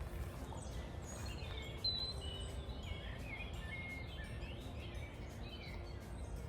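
Small wild birds singing and chirping, with short high warbling phrases and chirps overlapping one another, over a low steady rumble.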